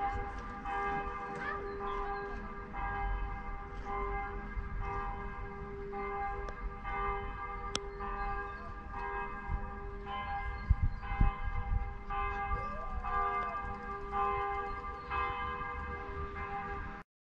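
Church bells ringing, with repeated strikes and long overlapping rings, over a low rumble. A few low thumps come about two-thirds of the way through, and the ringing cuts off suddenly just before the end.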